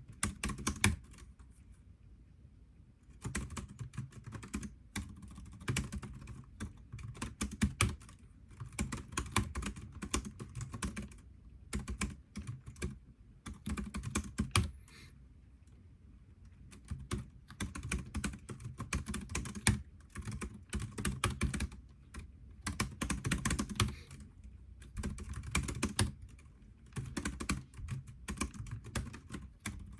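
Typing on a computer keyboard: quick runs of key clicks in bursts, broken by short pauses about two seconds in, around twelve and sixteen seconds in, and near twenty-four seconds in.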